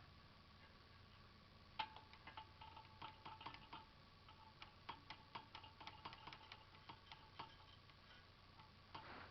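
Irregular light metallic clicks and taps with a faint ring, from small metal parts of a Honda G100 engine being handled and fitted; they start about two seconds in and stop a little before the end.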